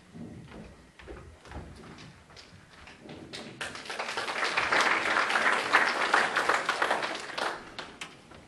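Audience applause in a hall, building up about three seconds in, swelling and then fading near the end. Scattered taps and thuds come before it.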